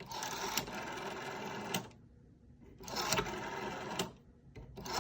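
Rotary telephone dial spinning back after each digit is dialed, a whirring run of fine clicks, three times, the first return the longest. The gaps between are the finger pulling the dial round for the next digit.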